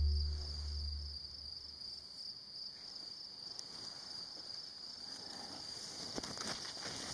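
Steady, high-pitched chirring of insects in the grass. A low rumble fills about the first second, and faint scattered clicks and rustles come near the end.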